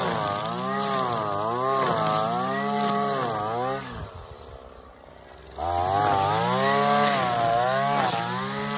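Shindaiwa two-stroke string trimmer with a Speed Feed head cutting tall grass, its engine pitch rising and falling about once a second as the line sweeps through the weeds. About four seconds in the engine drops away for a second and a half, then comes back up to cutting speed.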